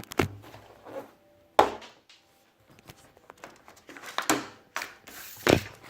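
Hands handling a Blu-ray steelbook and its packaging: several sharp knocks and clicks with rustling in between, the loudest about one and a half seconds in.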